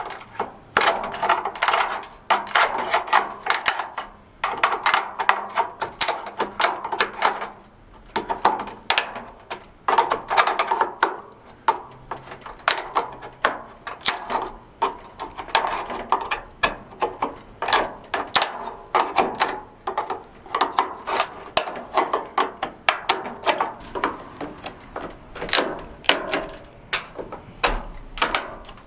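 Hand tools working on a pickup truck door: a steady run of irregular metallic clicks, knocks and short scrapes as parts of the door and its window assembly are worked loose.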